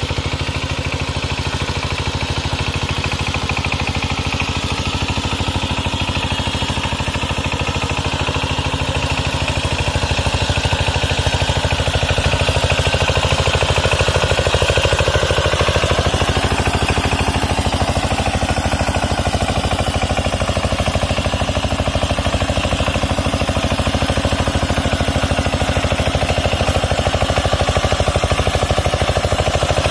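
Horizontal single-cylinder diesel engine of a walk-behind power tiller running steadily while tilling a flooded paddy field, a little louder from about ten seconds in.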